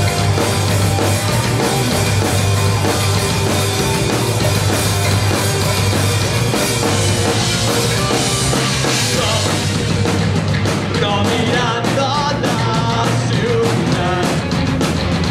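Live rock band playing at full volume: electric guitars, bass and a drum kit with cymbals. About ten seconds in the cymbal wash eases and a pitched guitar line stands out more.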